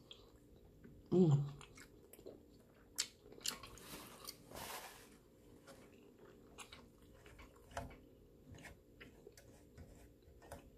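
Close-up wet chewing of garlic shrimp dipped in alfredo sauce: scattered mouth clicks and lip smacks. About a second in, a short voiced hum falls in pitch.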